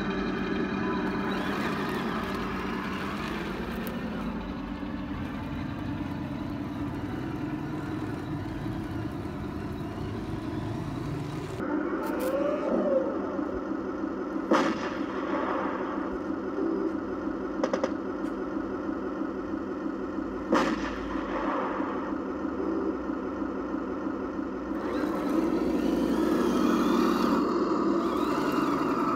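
Simulated tank engine sound from the sound unit of a Tamiya 1/16 Leopard 2A6 RC tank, running steadily and stepping up in loudness about twelve seconds in and again near the end, with a few sharp cracks.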